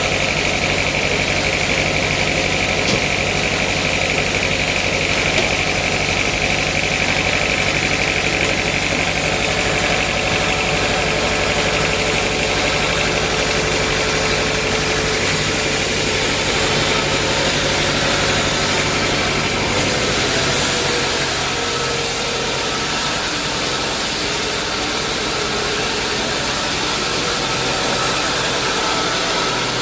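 Sawmill machinery running with a steady mechanical drone; about two-thirds of the way through the low hum drops away and a higher hiss takes over.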